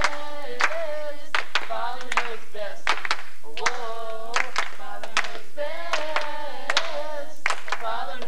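A group of voices singing a song together, with hand claps keeping a steady beat of about one clap every three-quarters of a second.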